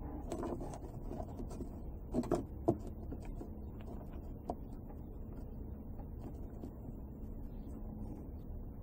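Small parts being handled on a workbench: faint clicks and taps, with a few sharper ones about two to three seconds in, over a steady low hum.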